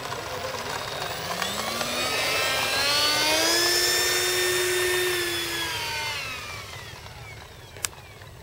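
Electric ducted fan of a model T-45 jet (68 mm metal fan driven by a 4000 kV outrunner motor) whining up in pitch about a second in, holding a steady high whine, then winding down, while the model runs on the ground. A single sharp click comes near the end.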